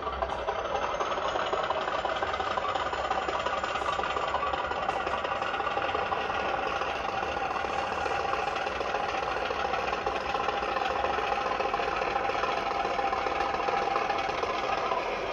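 Sound decoder in an O gauge Class 50 model locomotive playing a recorded English Electric 16CSVT V16 diesel engine through its small speaker, running steadily.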